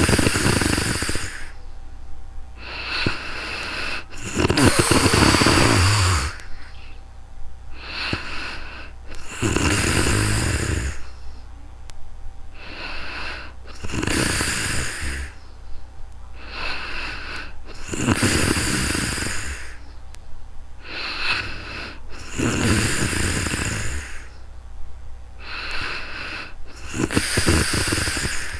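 A sleeping woman snoring. Seven loud snores come about every four and a half seconds, each with a low flutter, and a softer breath falls between each pair.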